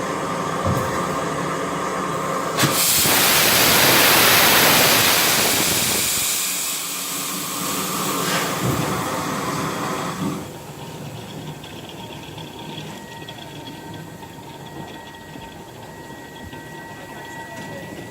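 A GWR Castle-class steam locomotive venting steam. About three seconds in, a loud hiss starts suddenly, swells and then fades over several seconds, and about ten seconds in it drops off to a quieter background.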